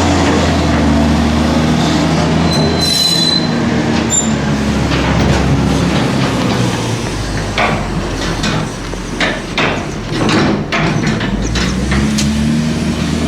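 Heavy farm machinery running steadily, with a brief high squeal about three seconds in and a run of metallic clanks and knocks in the second half.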